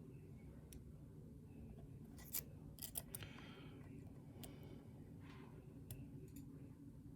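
Faint clicks and scraping of a lock pick working the pins of a lock under tension, with a few sharper clicks about two and a half to three seconds in.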